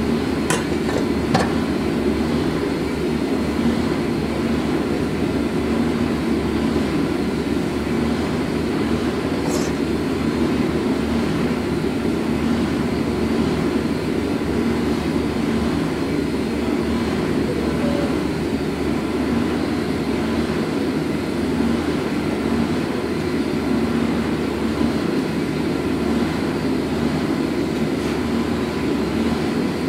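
A steady machine drone that holds an even level throughout, with two light clicks about a second in.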